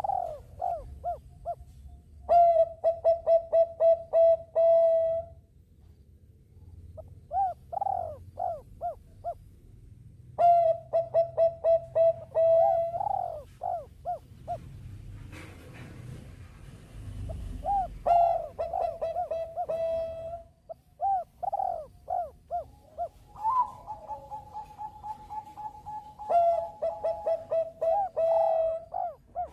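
Zebra doves (perkutut bangkok) cooing: repeated phrases of quick stuttering notes that run into a held coo, several phrases overlapping late on. A brief rush of noise comes about halfway through.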